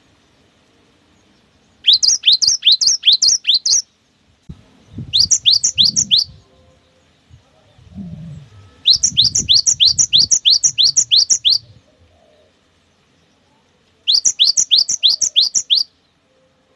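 Cinereous tit (gelatik batu) singing its fast 'wucit wucit' song: four bursts of quickly repeated, downward-sliding whistled notes, each burst lasting one to three seconds. Low thuds and rumble sound under the second and third bursts.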